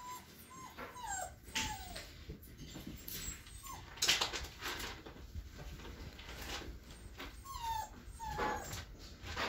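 Standard poodle puppies whimpering: short high whines that slide down in pitch, several near the start and again near the end, with bursts of scratchy rustling in between, loudest about four seconds in.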